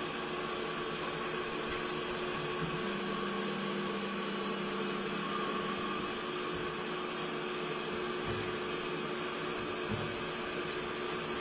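CNC lathe running with a steady mechanical hum and whine. A lower tone joins about three seconds in and holds for a few seconds, and two soft knocks come near the end.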